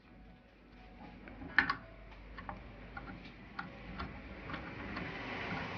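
Light, irregular metal clicks and ticks as the fastening nut on a wet grinder's pulley shaft is fitted and turned by hand, with one sharper click about one and a half seconds in.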